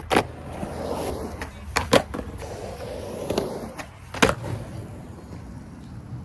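Skateboard rolling with sharp wooden clacks of the board: one right at the start, two in quick succession near two seconds in, and another about four seconds in, as tre flips are attempted.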